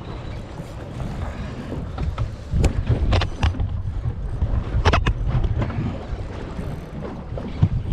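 Wind rumbling on the microphone aboard a small boat at sea, with a few sharp knocks and slaps about two and a half, three and five seconds in.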